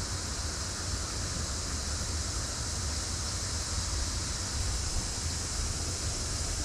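Steady rush of a waterfall, with an even hiss of falling water and spray and a low rumble underneath.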